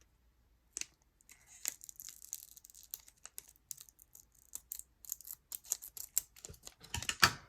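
Trading cards and foil booster-pack wrappers being handled: a run of quick, irregular clicks and rustles as cards are flicked through, louder near the end.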